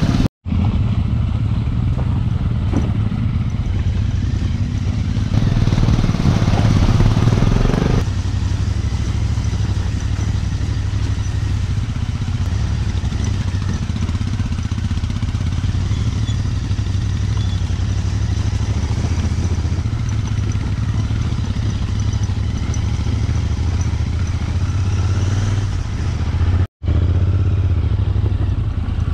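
Royal Enfield Interceptor 650's parallel-twin engine running steadily under way, with road and wind noise. A louder, rougher stretch ends abruptly about eight seconds in, and the sound drops out for an instant twice, near the start and near the end.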